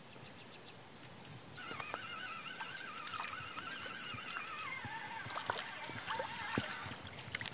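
Spinning reel being cranked to bring in a small hooked fish. Its gears give a faint, wavering whine that starts about one and a half seconds in and drifts lower in pitch toward the end.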